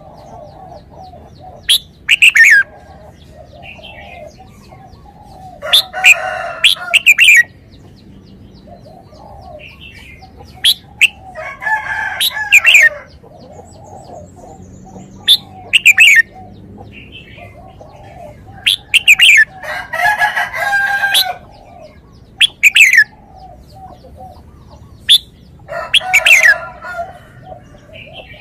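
Red-whiskered bulbul singing loud, short, whistled phrases of quick sharp notes, repeated every few seconds, with softer, lower calls between the phrases.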